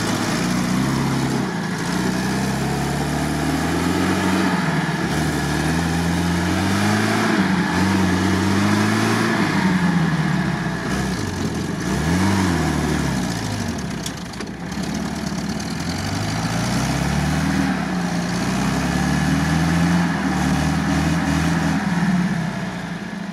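UAZ-469 soft-top's engine working under load on a steep side slope, its revs rising and falling again and again as the driver feathers the throttle, with a quick drop and climb about halfway through.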